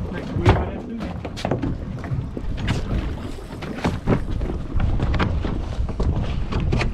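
Wind rumbling on the microphone aboard a small boat at sea, with irregular knocks and slaps.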